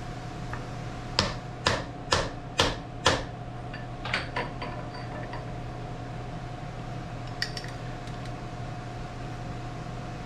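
Hammer tapping a hard cast crank lever held in a machine vise, seating it down onto lead bars to level it: five sharp taps about two a second, then two lighter ones. A steady hum runs underneath.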